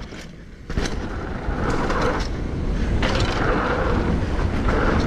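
Hardtail mountain bike rolling fast over a dirt trail: steady tyre rumble and bike rattle with wind noise, starting after a sharp knock about a second in.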